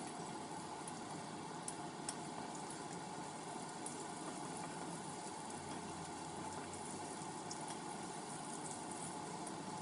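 Food cooking in a frying pan: a steady sizzle with a few faint crackles.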